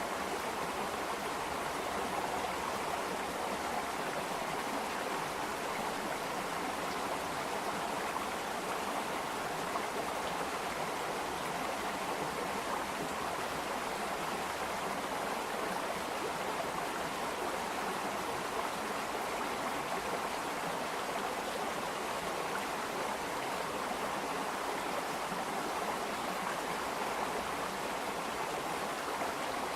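Water flowing and babbling in a stream, a steady unbroken rush with no single splashes standing out.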